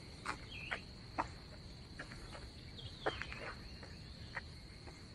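Crickets singing a steady, high-pitched trill, with a handful of short, sharp chirps scattered over it.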